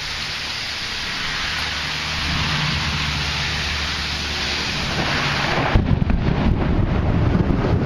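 Thunder rolling as a long, low rumble over the steady hiss of rain. Near the end, gusts of wind buffet the microphone.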